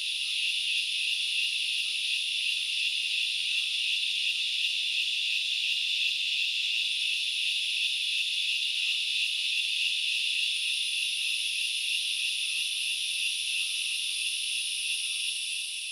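Dense, steady insect chorus from a forest, a continuous shrill buzzing drone. A higher, thinner layer grows stronger about seven seconds in.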